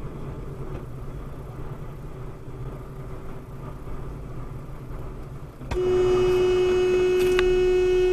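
Steady road and engine rumble of a moving car, then about six seconds in a horn sounds one steady tone, held without a break, a warning to a truck coming head-on in the car's lane.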